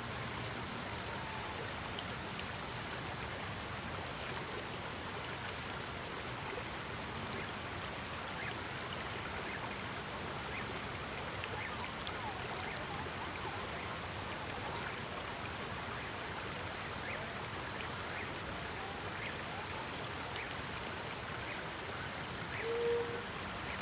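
Creek water running steadily, with a brief low pitched call about a second before the end.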